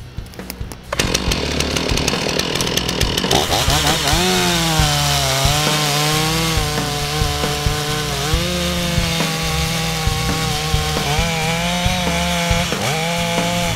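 A STIHL chainsaw running at full throttle and cutting into a standing tree trunk from about a second in. Its engine pitch dips and recovers several times as the chain bites into the wood while it cuts the face notch for felling.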